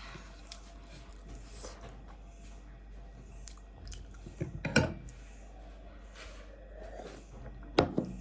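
A person chewing and biting food close to the microphone, with two short, louder sounds: one about halfway through and one near the end.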